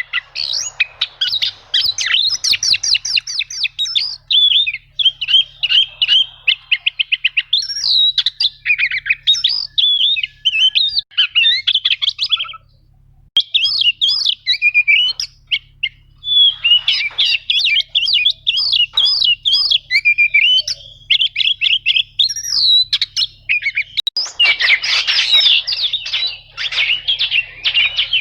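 Oriental magpie-robin (kacer) singing almost without pause: rapid runs of repeated high whistled notes and chattering trills, broken by short gaps about halfway through, with a denser, harsher stretch near the end.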